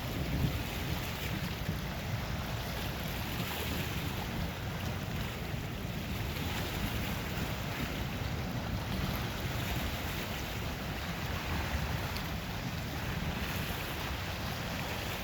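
Steady wind buffeting the microphone, with waves washing on the Lake Superior shore.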